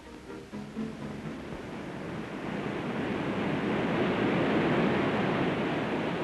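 Ocean waves on an old film soundtrack: a steady rush of surf that swells over the first few seconds and then holds, as the last low string notes of the music die away.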